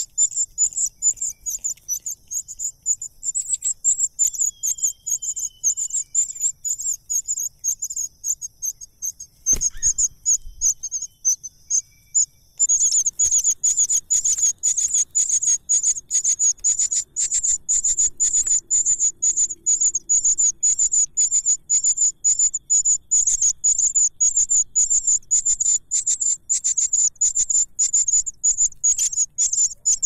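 Nestling birds begging with rapid, high-pitched cheeping over a steady high trill; about twelve seconds in, the begging turns louder and denser. A single knock sounds shortly before that.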